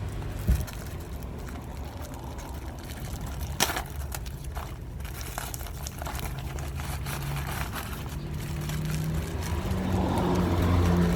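A motor engine running with a low steady hum, its pitch stepping up and growing louder toward the end, with two sharp knocks in the first four seconds.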